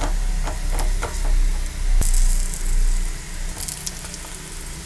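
Tiger nut dough loaves frying in oil in a non-stick frying pan, sizzling, while a slotted spatula clicks and scrapes against the pan as they are flipped. The sizzle flares up about two seconds in and again briefly a little later, over a low rumble that fades after about three and a half seconds.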